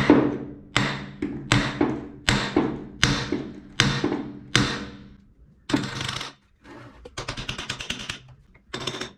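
Light hammer taps on the cylinder barrel of a seized Husqvarna WR 250 two-stroke engine, working the barrel up off the piston. There are seven taps, about one every three-quarters of a second, each ringing briefly. After about five seconds the taps give way to short bursts of metallic rattling and scraping.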